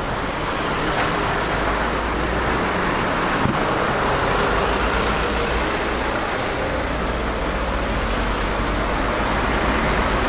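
Steady road traffic noise: a continuous rush of passing vehicles over a low engine rumble.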